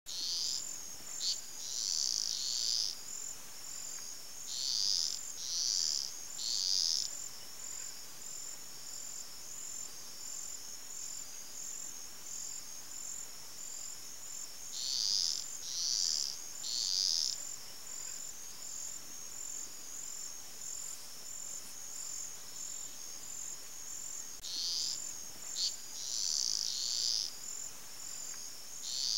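A steady high-pitched chorus of small calling animals, fast and pulsing. Louder groups of about three half-second calls stand out four times.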